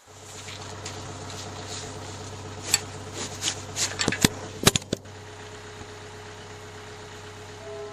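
Excavator engine idling steadily, with a cluster of sharp metal clinks and clanks between about three and five seconds in from the hooks of the lifting strap on the beam.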